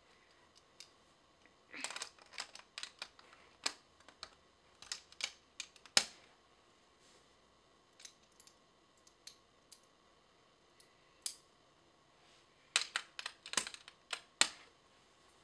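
Snap Circuits plastic parts clicking as pieces are handled and snapped onto the clear plastic base grid: clusters of sharp clicks about two seconds in, around five to six seconds in, and again near the end.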